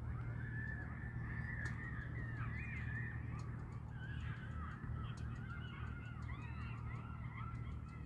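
A flock of birds calling over each other, a continuous chatter of many short chirps that sweep up and down in pitch, over a steady low hum.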